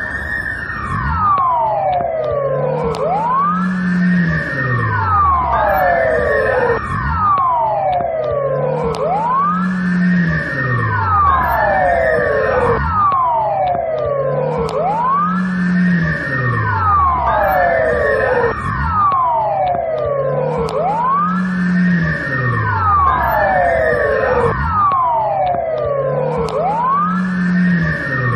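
Belarusian police siren wailing, its pitch sweeping up and down in long, overlapping rising and falling glides that repeat without a break.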